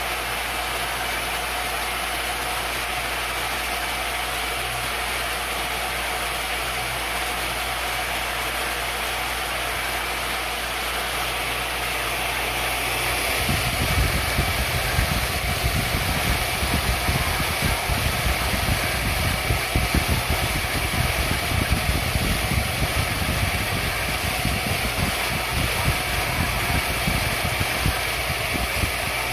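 CNC-converted X2D mini milling machine running, its belt-driven spindle motor giving a steady whine while the end mill cuts into a wood board. From about halfway the cutting is heard closer, louder and rougher: an uneven crackling chatter of the bit chewing through wood.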